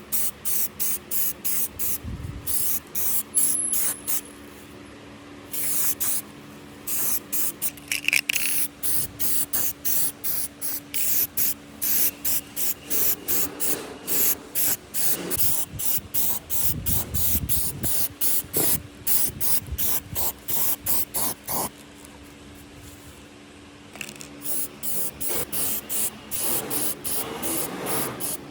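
Quick, repeated bursts of spray hiss, about three a second, from a nozzle pressed and released over and over, with two short pauses.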